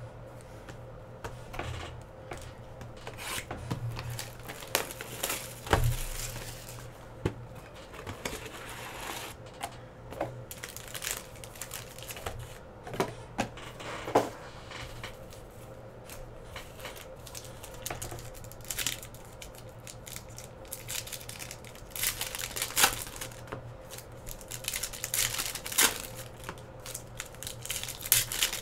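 Trading card pack wrappers being torn open and crinkled, with the packs and cards handled: many short rips and crackles coming and going.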